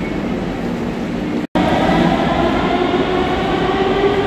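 Station rumble, then after an abrupt cut about one and a half seconds in, a Sofia Metro train at the platform, its electric drive giving a steady whine of several tones over the rumble.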